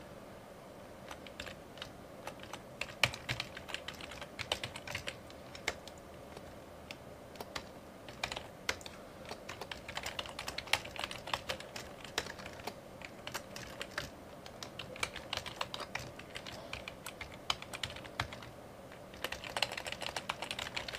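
Typing on a computer keyboard: sharp keystrokes in irregular bursts, with short pauses and a quicker run of keys near the end.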